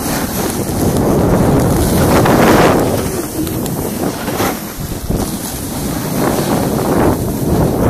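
Wind rushing over a phone's microphone while a snowboard slides down a snowy slope, the board's scrape and hiss on the snow mixed in. The rush swells loudest about two to three seconds in.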